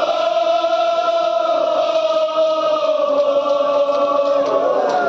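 Men's voices chanting together in a mourning chant, one long drawn-out note that slowly falls in pitch.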